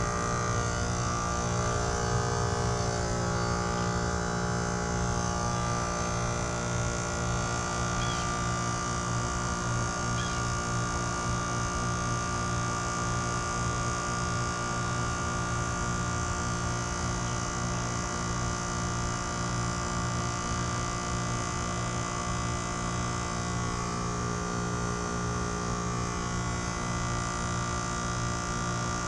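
Trane XR14 heat pump outdoor unit running steadily in its defrost cycle: a constant compressor hum made up of many steady tones.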